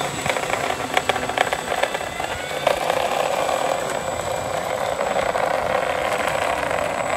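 Simulated warplane engine sound from an ESS-Air sound unit in a flying RC P-47, coming out rough and crackly, as if breaking up, which the pilots take for abnormal. A thin steady high tone sounds throughout.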